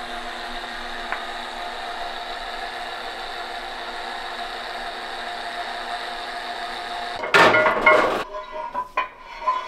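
Steady machine-shop hum while the cast-iron RB26 engine block hangs from a chain hoist. Near the end a loud noisy rush lasts about a second, followed by a couple of metal knocks as the block is handled at the machine.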